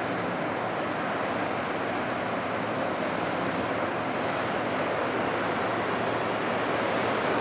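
Steady rushing of wind and water with a faint low hum beneath, from a large ro-ro cargo ship passing under way. A brief high-pitched sound comes about four seconds in.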